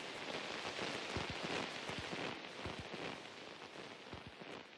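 Closing textural passage of an experimental free-jazz track: a hissing, rain-like noise with scattered small clicks and crackles, fading steadily down.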